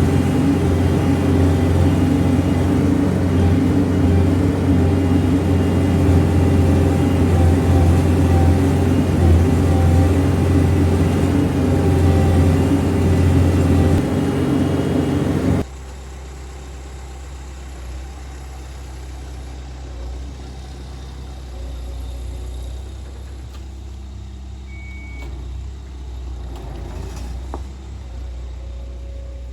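Heavy earthmoving machine's diesel engine running steadily close by. About halfway through it cuts off suddenly, giving way to a quieter, steady engine rumble.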